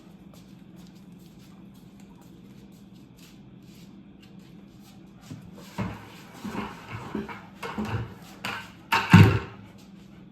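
Household objects being shifted and set down, a run of knocks and scrapes starting about halfway, with one loud thump near the end, over a faint steady hum.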